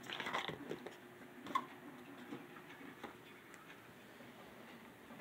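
Faint handling noises on a tabletop: a brief rustle at the start, then a few light, isolated clicks and taps as small parts and packaging are moved about.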